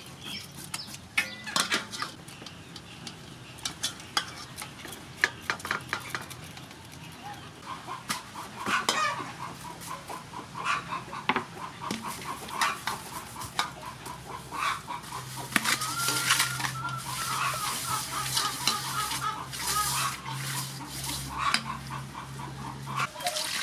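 A whole fish being scaled with a knife and scrubbed with coarse salt in an aluminium bowl: scraping strokes and gritty clicks against the metal. Repeated clucking calls come in behind it from about eight seconds in, and a low steady hum joins in the second half.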